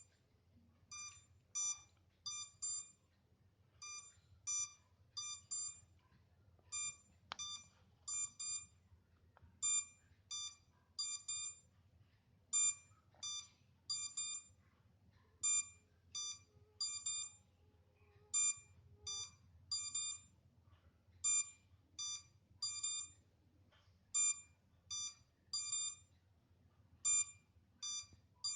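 MJX Bugs 3 quadcopter's lost-signal warning: short, high electronic beeps in clusters of two or three, repeating every couple of seconds. The drone sounds it because it has been left switched on with no link to its transmitter.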